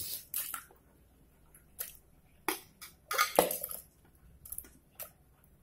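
Chopped tomatoes and onions pushed off a steel plate and dropping into water in an aluminium pressure cooker: a string of short, wet plops and squishes, the loudest cluster a little past halfway.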